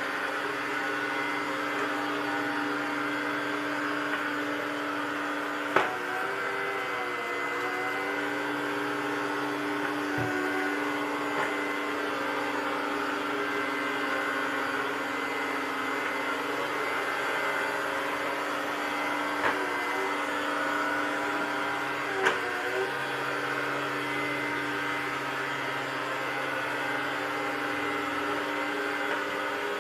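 Robot vacuum cleaner running with a steady motor hum. A few sharp knocks break in, and after them the pitch of the hum wavers briefly.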